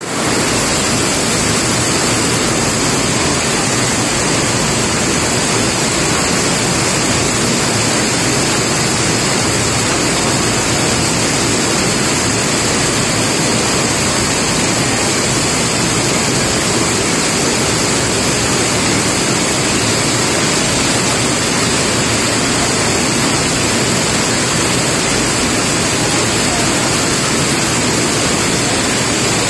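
Steady heavy rain falling, a dense even hiss with no thunder.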